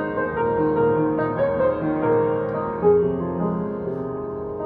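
Background music led by piano, a slow melody of held notes.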